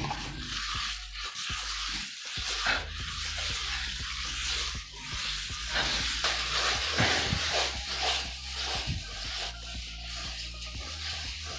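Hand float rubbing and scraping over fresh repair mortar on a plastered wall, in many short back-and-forth strokes with a gritty rasp.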